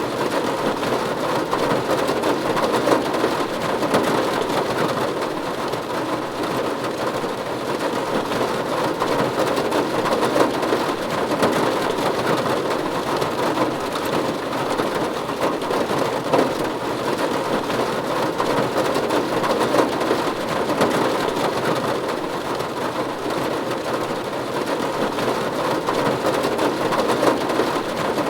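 Steady rain falling on a roof: a dense, even patter of drops that holds at the same strength throughout.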